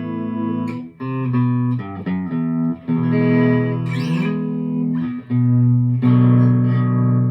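Electric guitar chords played through a Mooer Trelicopter tremolo pedal set to a slow speed, the sound wobbling in volume. The chords ring on and change several times.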